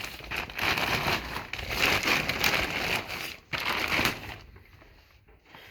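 Dense crinkling and rustling noise with many small crackles, which stops about four seconds in.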